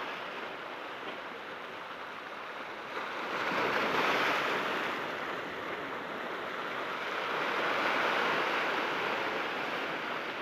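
Ocean surf breaking and washing over a rocky shore: a steady rush of water that swells louder twice, about four seconds in and again about eight seconds in.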